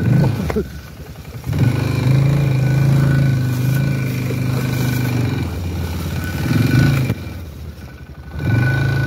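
Motocross bike engine running under throttle on the move, easing off twice (about half a second in and again near the end) and picking back up each time.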